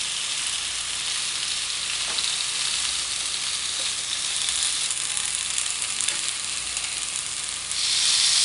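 Raw skewered shrimp sizzling on the hot ribbed plate of a preheated George Foreman contact grill: a steady hiss that gets louder near the end.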